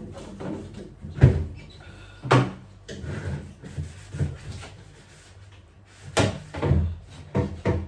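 A handful of sharp clunks and knocks as fridge parts are handled and bumped during cleaning, with quieter rubbing and handling noise between them.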